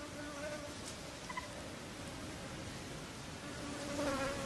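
Flying insects buzzing with a steady, wavering drone that swells near the end, with a short chirp a little over a second in.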